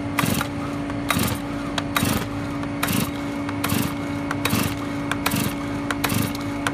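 Stihl chainsaw being pull-started cold on full choke with the decompression valve pressed, on its first-ever start: the recoil starter cord is pulled about eight times, a little under a second apart, each pull a short rasp.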